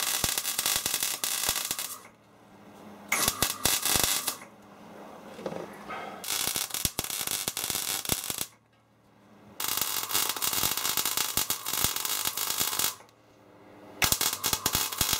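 MIG welding arc from a Clarke 160EN welder with an MB25 Euro torch, crackling and sizzling steadily as weld beads are laid. It comes in five runs of one to three seconds each, with short pauses between them as the torch trigger is released.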